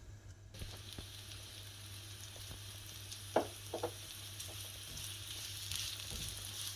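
Vegetables sizzling in hot oil in a frying pan, the sizzle starting suddenly about half a second in and growing louder as they fry. A couple of short knocks a little past halfway, like a utensil against the pan.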